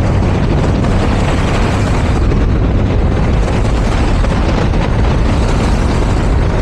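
Yamaha R15 motorcycle being ridden at a steady pace: wind rushing over the microphone mixed with the engine's steady running.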